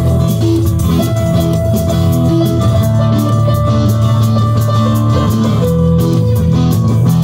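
Live rock band playing: two electric guitars, one a Les Paul-style single-cutaway, play held notes and riffs over a steady drum beat.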